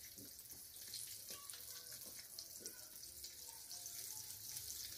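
Egg-dipped, cornflour-coated chicken pieces deep-frying in hot oil in a kadhai: a soft, steady crackling sizzle.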